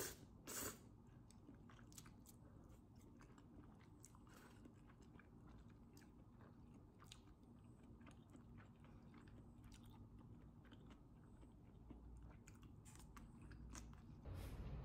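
Faint chewing and small clicking mouth sounds of someone eating spicy buldak noodles with bacon, with two louder bursts right at the start. A low rumble comes in near the end.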